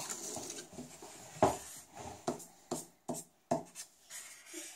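Felt-tip marker scribbling on paper on a hard table: a run of short, separate strokes, a few a second.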